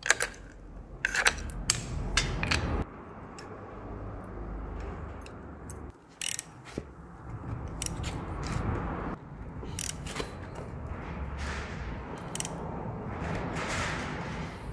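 Sharp metal clinks in the first few seconds, then a ratchet wrench clicking irregularly as a gear puller is wound tight against a stiff crankshaft timing-belt sprocket, with steel tools knocking now and then.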